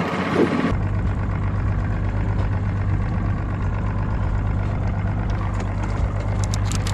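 A 225-horsepower outboard motor idling with a steady low hum. A few short sharp clicks come near the end.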